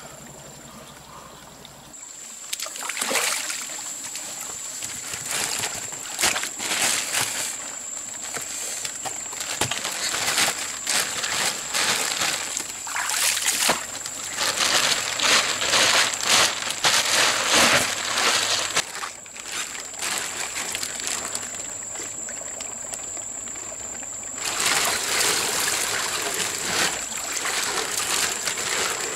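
Water splashing and trickling in irregular bursts, heaviest in the middle and again near the end, with a steady high-pitched tone running underneath.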